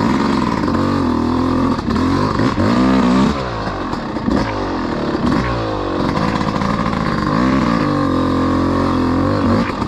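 Dirt bike engine running at idle, its throttle blipped several times so the revs rise and fall.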